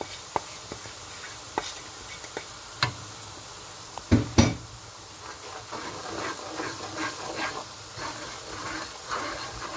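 Chopped onions and garlic frying in oil in a non-stick wok, with a few sharp clicks, then two loud knocks about four seconds in as a wooden spatula goes into the pan, followed by steady stirring and sizzling as the ground spices are mixed in.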